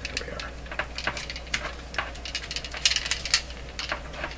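Irregular clicking rattle of a handheld voltage tester being shaken: its internal buzzer moves loosely inside, so it sounds like something loose. The clicks come thickest about three seconds in.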